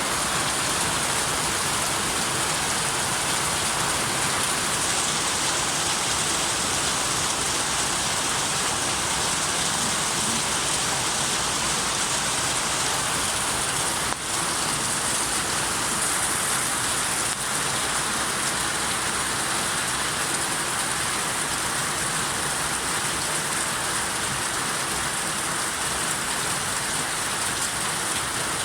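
Steady heavy rain falling, a dense even hiss without a break except for a momentary drop in level about halfway through.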